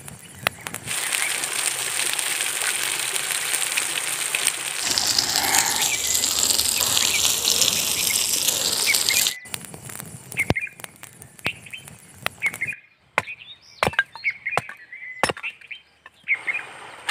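Oil and food sizzling loudly on a hot stone slab over a wood fire, stopping suddenly after about nine seconds. Then birds chirp, with a few sharp knocks of split wood and a hatchet.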